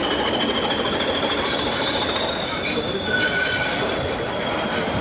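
Class 20 diesel locomotive's English Electric eight-cylinder turbocharged engine running as the locomotive moves slowly away along the track. A thin high-pitched whine holds steady over the engine noise throughout.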